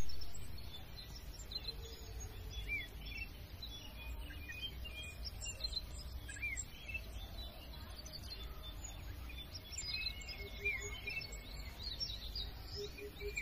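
Several birds chirping, with many short, scattered calls and quick little up-and-down notes, over a low steady rumble. A short run of low, quickly repeated notes comes in twice near the end.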